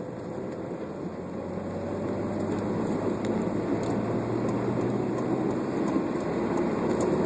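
Steady road and engine noise of a moving car, heard from inside, growing somewhat louder about two seconds in.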